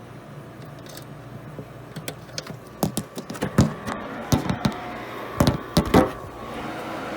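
Irregular clattering knocks and clicks of hands handling metal and hardware, the loudest of them between about three and six seconds in, over a steady machine hum. Near the end a steady rushing noise sets in and grows louder.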